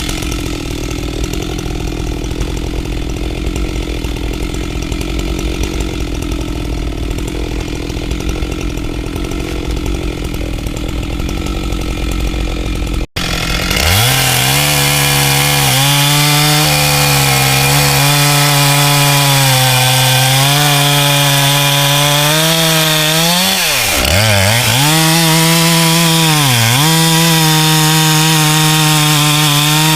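Husqvarna 385XP two-stroke chainsaw running at low speed, then, after an abrupt cut, screaming at full throttle while cutting wood. Its pitch sags twice as the chain bogs down in the cut.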